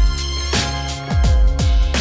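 Background music with a steady beat: deep bass drum hits that drop in pitch, about two a second, under sustained electronic tones.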